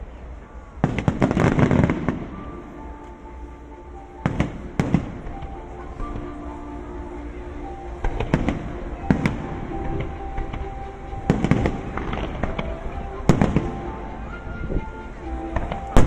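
Aerial fireworks bursting: a rapid crackling cluster of bangs about a second in, then single sharp bursts every one to two seconds. Music with held notes plays under them.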